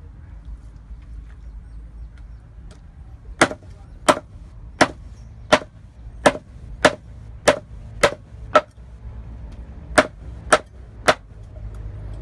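Cleaver chopping pieces of Muscovy duck on a round wooden chopping block. About a dozen sharp chops, roughly one every two-thirds of a second, start about three seconds in, with a short break about two-thirds of the way through.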